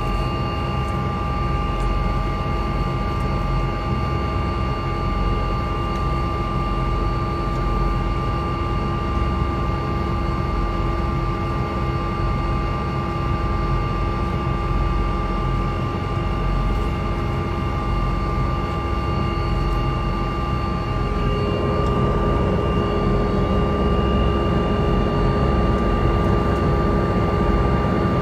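Helicopter engine and rotor running, heard from inside the cabin: a steady rumble with several held tones over it. About three quarters of the way through the tones shift and the sound grows slightly louder.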